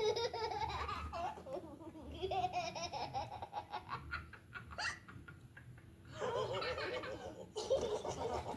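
Cartoon characters laughing, with a quick run of repeated laughs in the middle. The laughter dips about five seconds in, then starts up again.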